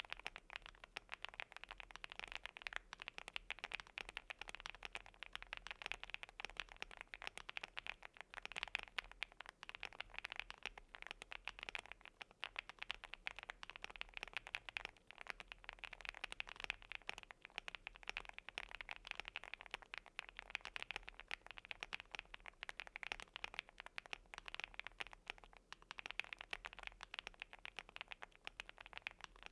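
Fast continuous typing on a Weikav Lucky65 V2 custom keyboard with lubed Gateron Smoothie linear switches, PBT Cherry-profile keycaps and an FR4 plate: a dense, irregular run of soft key clacks and bottom-outs.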